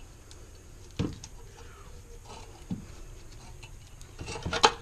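Scattered clicks and light knocks from a work light and hand tools being handled, with a quick run of louder taps near the end.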